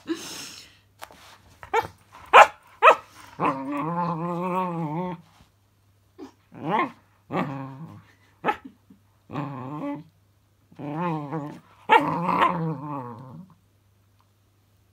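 Cocker spaniel puppy vocalising at a fidget spinner she is wary of: a few short sharp barks, then a string of long wavering howls and grumbles, the longest about two seconds.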